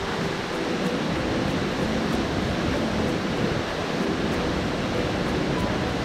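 Steady rushing of water, an even noise that does not let up.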